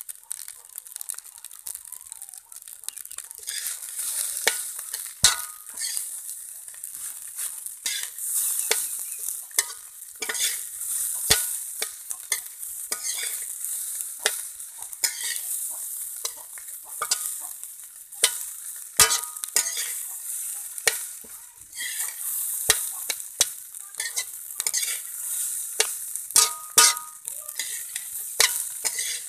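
Fried rice sizzling in a large metal pan while metal spoons toss and scrape it, with frequent clinks and scrapes of the spoons against the pan and a few short metallic rings.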